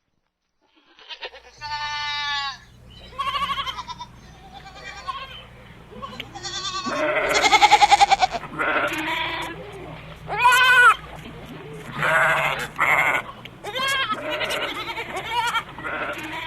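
Several goats bleating over and over in wavering, quavering calls that overlap, after about a second of silence at the start. The longest and loudest bleat comes about seven to eight seconds in.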